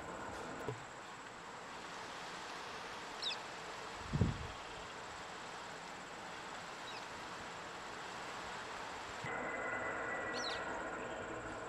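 Rural roadside ambience: insects droning steadily on one high note, with a few short bird chirps. A single low thump about four seconds in, and a low engine hum that fades out soon after the start and comes back near the end.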